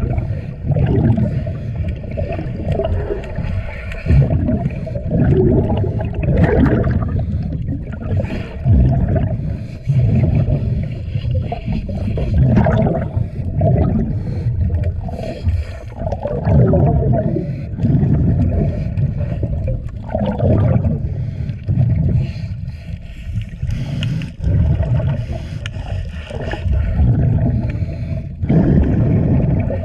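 A scuba diver's exhaled bubbles gurgling and rushing past the microphone underwater, in uneven surges every second or two.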